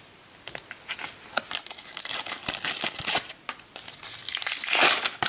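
A Panini football sticker packet crinkling in the hand and being torn open. It comes as two bouts of crackling, about two seconds in and again near the end, with small clicks between.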